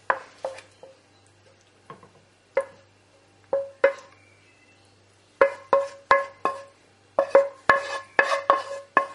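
A utensil knocking and scraping against a frying pan as sauce is scraped out onto a plate. Each knock leaves the pan ringing with the same short metallic tone. The knocks are sparse at first and come two or three a second from about halfway through.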